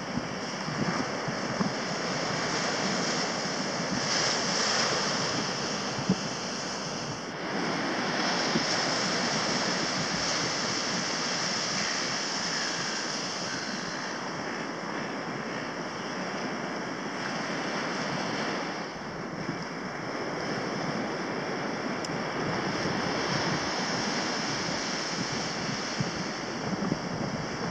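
Sea surf breaking and washing along a beach, a steady rushing wash with wind buffeting the microphone. The sound changes abruptly about seven seconds in.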